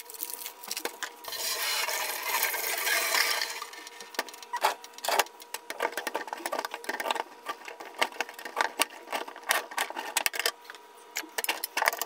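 Cauliflower being cut into florets with a kitchen knife on a plastic cutting board: a crunching, rustling stretch about a second in, then a string of irregular sharp clicks and taps as the blade hits the board and florets snap off.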